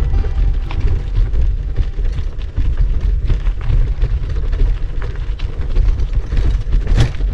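Wind buffeting the camera microphone as a deep rumble, mixed with the rattle and knocks of a mountain bike riding over a rough, rocky gravel track, with a sharper knock near the end.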